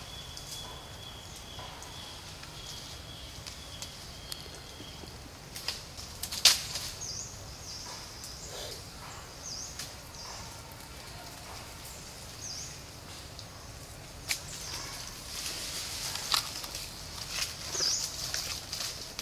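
Forest ambience: a steady high whine for the first few seconds, short high bird chirps every few seconds, and scattered sharp snaps and rustles, the loudest about six seconds in.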